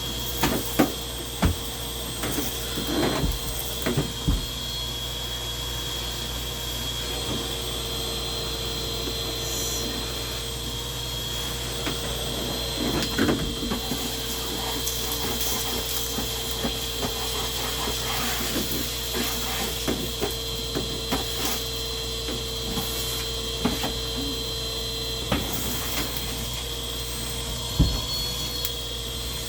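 Vacuum cleaner running steadily with a constant motor whine, with scattered knocks and clicks as it bumps against things.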